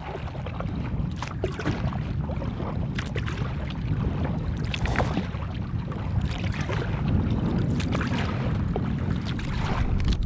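Kayak being paddled on choppy water, with irregular splashes and drips from the paddle strokes and small waves against the hull. Wind rumbles on the microphone throughout.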